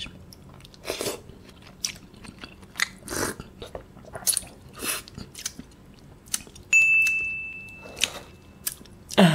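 Close-miked chewing of an oyster: scattered short wet chews and mouth smacks. Nearly seven seconds in, a high electronic chime sounds suddenly and rings out over about two seconds.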